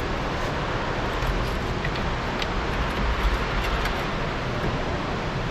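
Steady rushing background noise, with a few faint light clicks of hand tools on the front brake parts.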